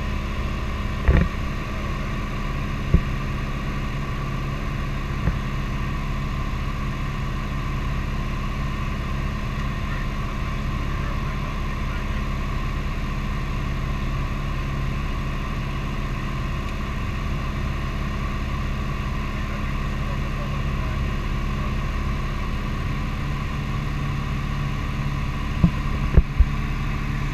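Light propeller airplane's piston engine and propeller droning steadily in cruise, heard from inside the cabin. A few short knocks sound about a second in, around three and five seconds in, and a couple more near the end.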